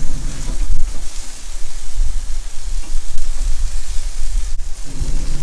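Chicken leg quarters sizzling on a wire grill grate directly over a charcoal and walnut-wood fire, as their juices drip into the flames. A steady low rumble runs underneath.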